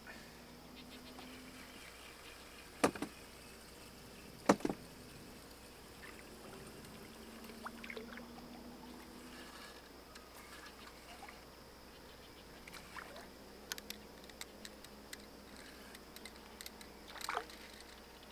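Faint lapping and trickling of water around a small fishing boat while a bluegill is reeled in, with two sharp knocks about three and four and a half seconds in, the second the loudest, and a few light ticks later on.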